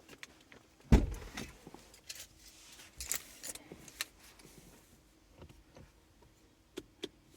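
A single heavy thump about a second in, then scattered light clicks and rattles of things being handled inside a parked car's cabin, over a faint steady hum.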